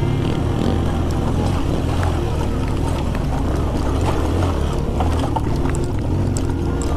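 Suzuki GS 150 motorcycle's single-cylinder four-stroke engine running steadily as the bike is ridden on a dirt track, with wind noise and scattered small clicks.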